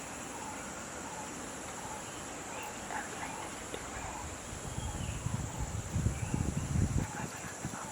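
Steady high-pitched insect chorus, with irregular low rumbling and thudding in the second half.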